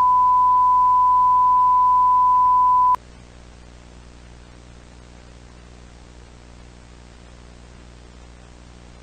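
A steady, single-pitch broadcast tone on a television channel, the kind that marks programming being cut for an emergency interruption. It cuts off suddenly about three seconds in, leaving only a faint hiss and hum of dead air.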